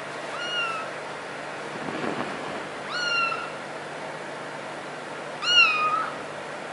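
A kitten meowing three times in short, high-pitched mews, the last one the loudest and longest.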